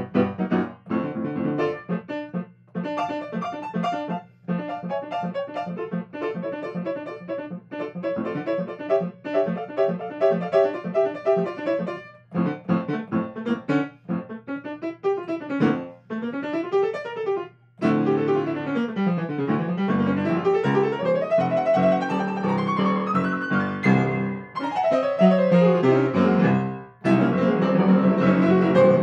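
Grand piano played in free improvisation: repeated chord patterns, then, from about halfway, fast runs sweeping down and back up the keyboard, with a few brief pauses between phrases.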